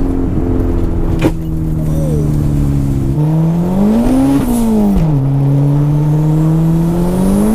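Turbocharged classic Mini's engine heard from inside the cabin on the move: running steadily, then revving up about three seconds in, dropping back a second or two later, and climbing again toward the end. A single sharp knock about a second in.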